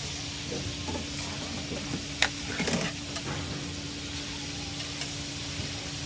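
Short-rib patties (tteokgalbi) sizzling steadily on a flat-top griddle. Metal tongs give a sharp click about two seconds in, then a short clatter, as patties are lifted onto a plate.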